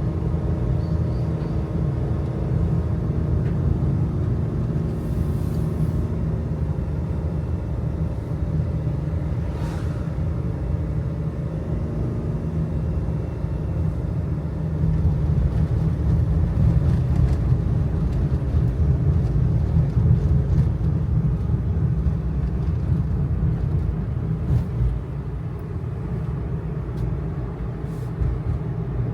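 Kei truck's small 660 cc engine running steadily with road and tyre rumble on a mountain road, getting a little louder about halfway through, with a few faint clicks and rattles.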